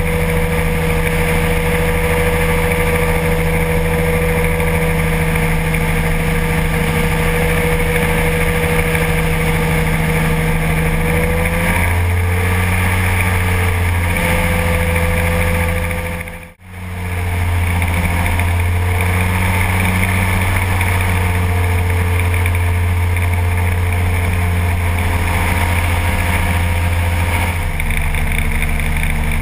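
Kolb ultralight aircraft's engine and propeller running steadily in flight, with wind rush over the airframe. The engine note shifts about twelve seconds in and again near the end, with a brief dropout a little past the middle.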